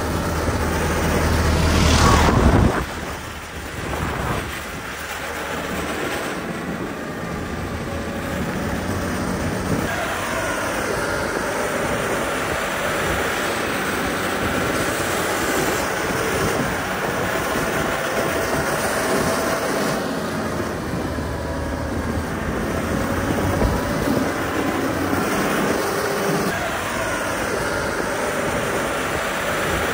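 Heavy diesel road-construction machinery working gravel, running steadily. A louder, deep rumble builds over the first couple of seconds and cuts off sharply.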